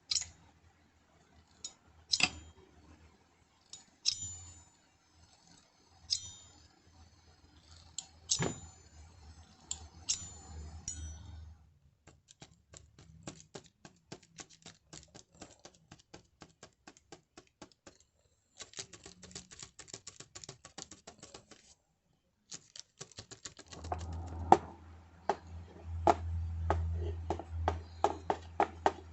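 Sharp metallic clicks, each with a short high ring, about every two seconds, followed by a long run of fast, even ticking; near the end quick clicks over a low hum.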